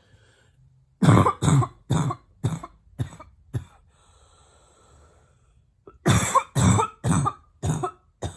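Closed-mouth barking coughs in two fits. About six come in quick succession from about a second in and grow weaker. After a quiet pause, about five more strong ones follow near the end.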